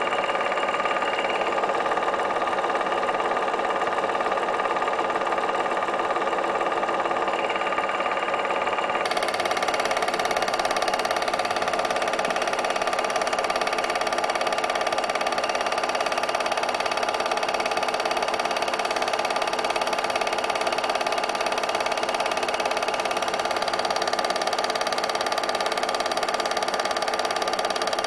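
8mm film projector running steadily, a continuous mechanical whirr with a fast clatter. A brighter hiss joins about nine seconds in.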